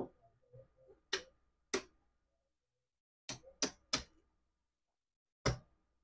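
Betting chips clicking as they are picked up, stacked and set down: about seven sharp, separate clicks at irregular intervals, with a few faint soft knocks in the first second.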